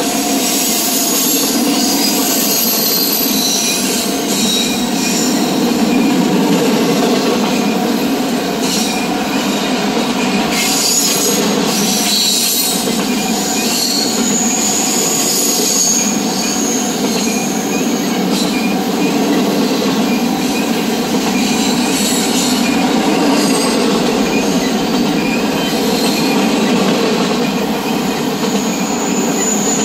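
CSX double-stack container freight train rolling past close by: a steady rumble of steel wheels on the rails with scattered clicks, and a high wheel squeal that rises twice, once about halfway through for a few seconds and again near the end.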